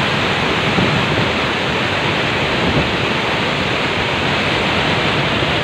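A waterfall in spate, with muddy floodwater pouring over its ledges in a steady, loud rush of water.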